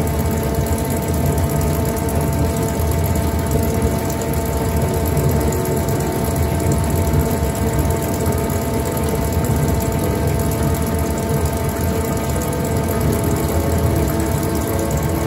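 Twin saw log edger and its sawmill machinery running idle: a steady low hum with several constant tones above it and no changes.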